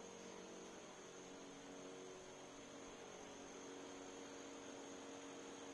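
Near silence: faint steady hum and hiss of room tone.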